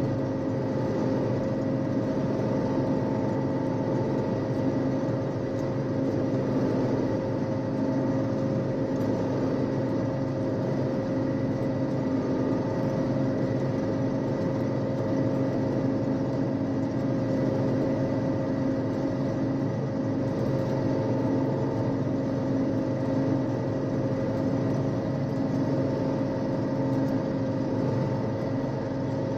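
1974 John Deere 6600 combine running steadily while harvesting soybeans, heard from inside the cab: a constant drone of engine and threshing machinery with a steady whine over it.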